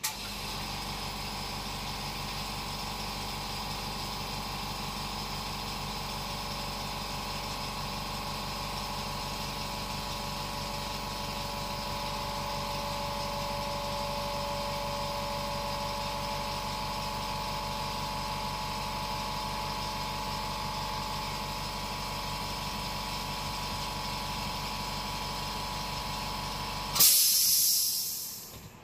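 Steady mechanical hum with a whine, which stops about 27 seconds in with a brief loud hiss that quickly fades.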